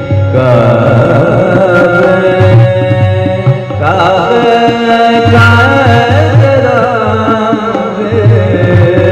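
Live ghazal music: tabla keeps a rhythm with repeated deep strokes under a steady drone, while a male voice sings ornamented, wavering melodic lines.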